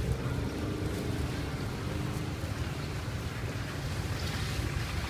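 Wind buffeting the microphone in an uneven low rumble over a steady hiss of street background noise, with a faint engine hum fading out in the first couple of seconds.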